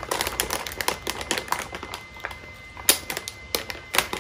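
Irregular clicks, taps and light rustling of a graphics card being handled and lifted out of its cardboard box and plastic packing, with one sharper click about three seconds in.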